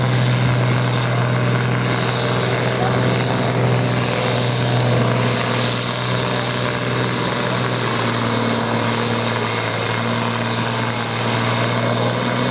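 A farm-stock pulling tractor's diesel engine running loud at steady high revs, with a constant deep drone.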